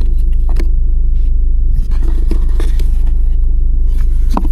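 Clicks and scrapes of plastic as the AUX input socket is worked out of a car's centre console, over a loud, steady low rumble in the car.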